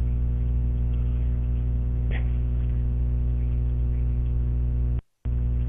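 Steady electrical mains hum with a buzzing stack of overtones on the audio line. It cuts out completely for a moment near the end, and a faint short tick sounds about two seconds in.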